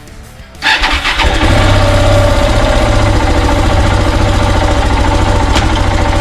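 KTM 690 Enduro's single-cylinder engine starting on the electric starter: a brief crank under a second in, catching about a second and a half in, then idling steadily with a fast, even beat.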